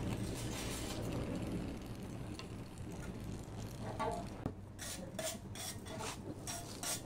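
Oxy-fuel torch flame hissing steadily on a hot aluminium tube joint. From about four and a half seconds in, a wire brush scrapes the joint in quick strokes, about three a second, cleaning the metal for the aluminium brazing rod.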